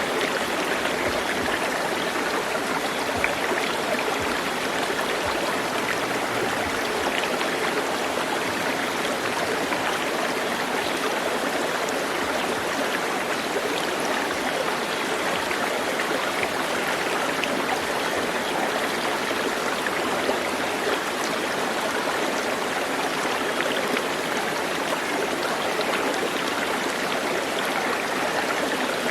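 Stream water running steadily, an even rushing sound without breaks.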